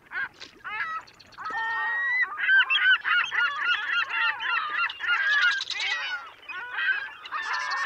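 A flock of birds calling, many short overlapping calls, a few at first and then a dense chorus from about two seconds in.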